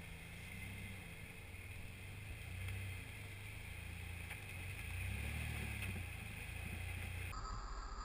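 Engine of a lifted rock-crawling truck running at low speed as it climbs over boulders, its revs swelling and easing off twice.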